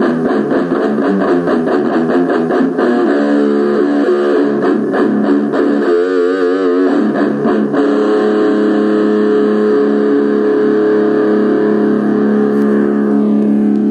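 Guitar music, probably electric: quick picked notes, then a wavering, vibrato-like note about six seconds in, then a held chord ringing on. It plays clean, with no stray voice breaking in, which suggests the returned device is working normally.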